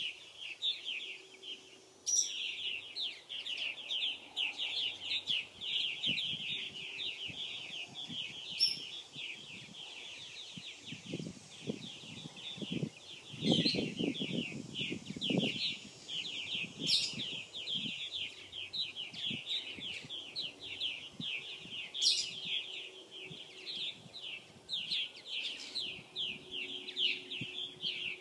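A colony of purple martins chattering: a dense, continuous stream of quick chirping calls from many birds at once, with a few sharp high notes. A lower, rougher sound joins for a few seconds in the middle.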